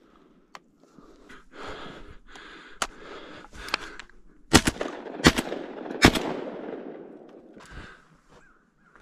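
Three quick shotgun blasts about two-thirds of a second apart, each trailing off in an echo, preceded by a couple of smaller, sharper cracks. Rustling noise fills the gaps between them.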